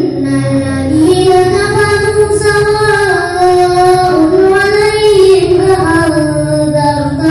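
A young boy's voice chanting a Quran recitation in the melodic tartil style, one long phrase of held, ornamented notes whose pitch rises and falls, amplified through a handheld microphone and a portable loudspeaker.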